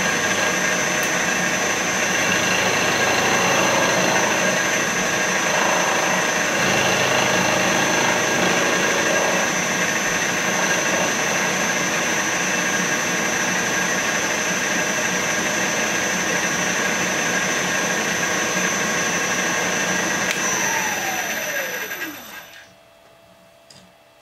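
Milling machine spindle running while an end mill cuts a flat on a round metal sleeve, a steady whine. About 21 seconds in, the spindle is switched off and its whine falls in pitch as it winds down to a stop.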